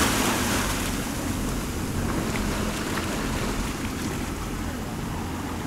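An engine idling low and steady under water sloshing and wind noise on the microphone, with a few faint knocks.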